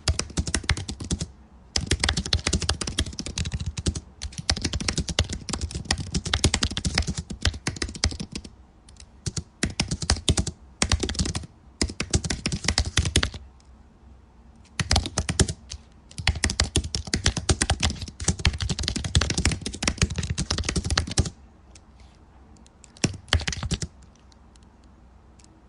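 Typing on a computer keyboard: quick runs of key clicks a few seconds long, broken by short pauses, with a lighter burst near the end.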